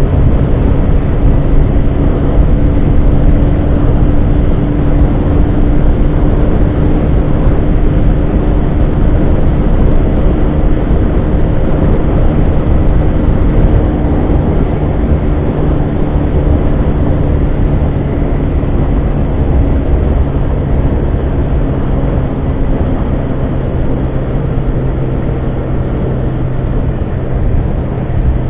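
Yamaha Factor 150's single-cylinder four-stroke engine running flat out at a steady pitch in fifth gear at about 130–140 km/h, with heavy wind rush over the handlebar-mounted microphone.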